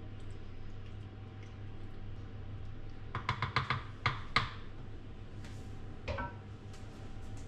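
Wooden spoon clicking and clinking against a metal springform pan in a quick run of about eight taps with a short metallic ring, about three seconds in. A single knock follows about six seconds in, over a steady low hum.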